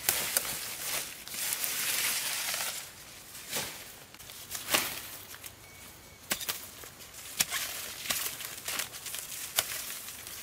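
Dry corn stalks and leaves rustling and crackling as they are pulled and broken, with sharp snaps about once a second. The rustling is heaviest in the first few seconds.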